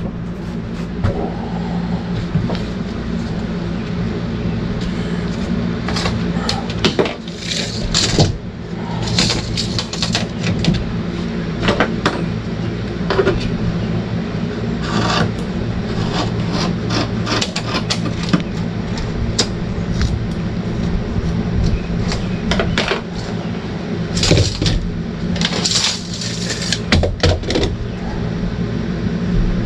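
Fiberglass cloth being cut and handled: irregular short, sharp snips and rustles, with a steady low hum underneath.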